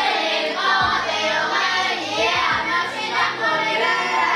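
Music with singing voices, running steadily throughout.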